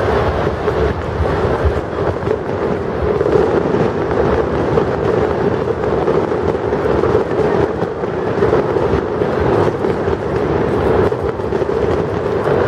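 Steady, loud din of a large crowd: many voices blended into one continuous noise, with no single voice standing out.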